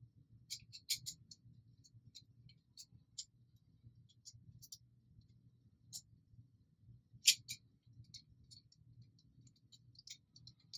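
Faint, scattered clicks and taps of small hardware and plastic blaster parts being handled during plunger assembly (threaded rod, nylock nuts), with one sharper click about seven seconds in, over a low steady hum.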